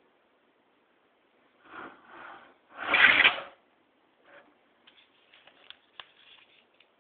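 A carriage is pushed by hand along a metal rail, making a short scraping slide. Two softer slides are followed by a louder one about three seconds in, lasting under a second. Light clicks and taps come after it.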